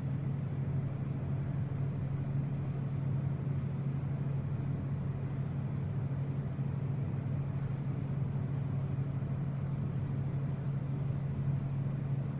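Steady low background hum with an even hiss over it, unchanging throughout, like a fan or motor running.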